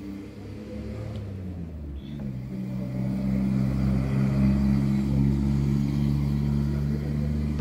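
A motor vehicle's engine running steadily, its pitch shifting about two seconds in and the sound growing louder over the next second, then holding.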